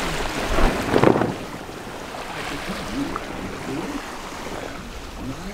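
Wind and water rushing past a sailing yacht running downwind with following waves, loudest in the first second or so and then easing off.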